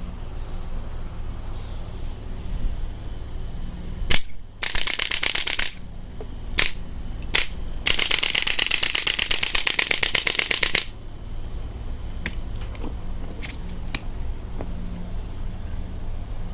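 Electric chiropractic impulse adjusting gun firing: a sharp single click about four seconds in, a rapid burst of clicks lasting about a second, two more single clicks, then a rapid run of clicks lasting about three seconds, and a few faint clicks near the end. A steady low hum lies underneath.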